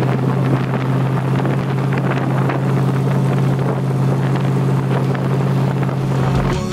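A vehicle engine droning at a steady pitch while driving at constant speed, with wind rushing over the microphone.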